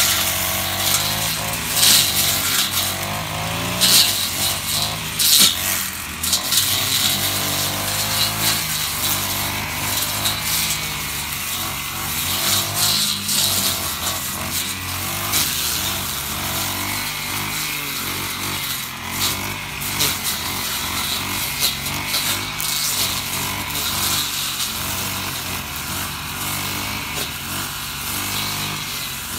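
Honda UMK450T brush cutter's GX50 four-stroke engine running at cutting speed, its note wavering, while the two-blade head slashes through tall grass with crackling bursts, densest in the first half.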